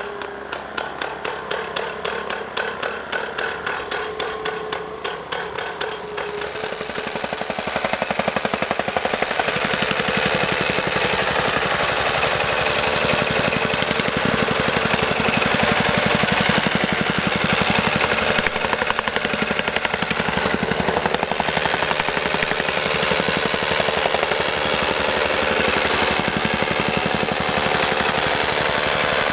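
Vibratory soil compactor packing earth around a concrete sign foundation. It makes spaced rhythmic pulses at first, then from about seven seconds in a faster, louder, steady pounding.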